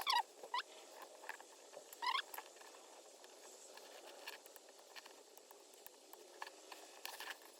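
Light clicks and scratchy rattles of small switch parts being handled and fitted together by hand. The loudest rattles come right at the start and again about two seconds in, with a few fainter clicks after that.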